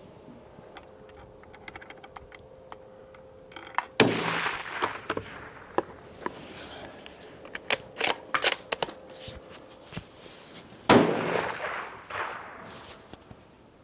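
Two rifle shots about seven seconds apart, each followed by a long rolling echo, with sharp clicks and clacks between them as the bolt is worked.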